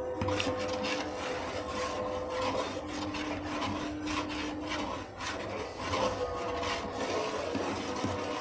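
A spoon stirring and scraping through thick, stringy haleem in an aluminium pot, in repeated irregular strokes.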